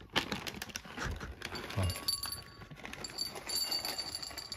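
Many small irregular clicks and crunches of dry cat kibble: cats chewing pellets off the floor and out of a dish, and more pellets rattling into a bowl as they are poured from a pouch.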